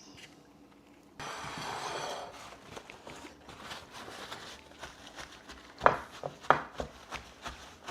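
Kitchen prep handling sounds as salmon is patted dry with paper towel: a second-long ripping rustle about a second in, then light taps and two sharp knocks about half a second apart.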